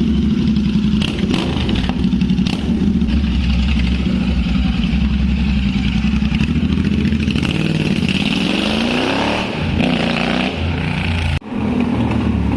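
Royal Enfield Continental GT 650's parallel-twin engine running loud on open bend pipes with no silencers, with a few sharp backfire pops about one and two and a half seconds in. Engine speed rises about eight seconds in as it is revved, and the sound breaks off for a moment near the end.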